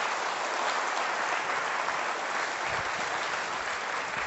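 Conference audience applauding, a steady round of clapping.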